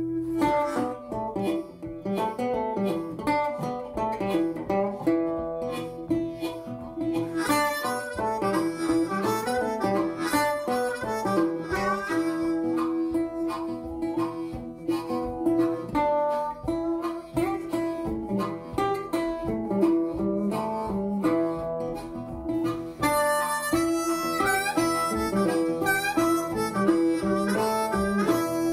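Background music: a harmonica playing long held notes over a picked acoustic guitar, in a bluesy style.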